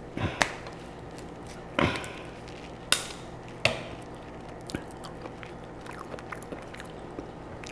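Boiled lobster claw shell being snipped with kitchen scissors and pried apart by hand: about five sharp cracks and snaps in the first four seconds, then small faint clicks as the meat is picked out.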